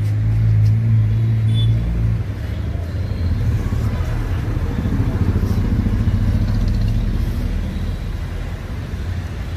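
Car engine idling: a low, steady rumble that becomes more uneven and pulsing about two seconds in.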